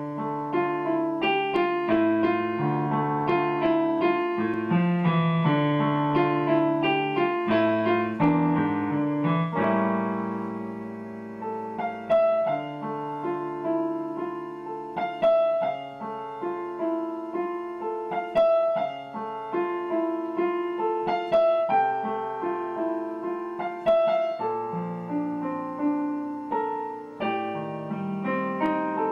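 Solo piano music: a slow, gentle melody of single notes over held chords.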